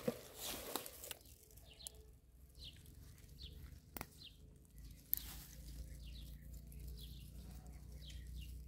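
Small birds chirping in short, repeated falling notes, a few per second at times. A couple of sharp clicks about halfway, and a low rumble that comes in and holds after that.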